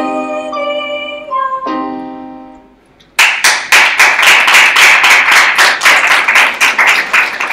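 Yamaha electronic keyboard playing sustained chords, the last one fading out about three seconds in. Then applause breaks out and keeps going, louder than the playing.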